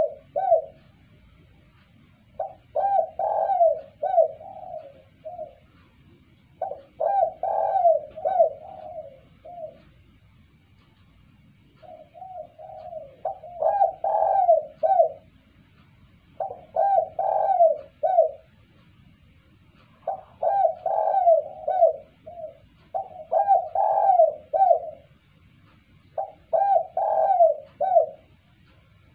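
Spotted dove cooing in full voice: about eight phrases, each a quick run of several arched coo notes, repeated every few seconds.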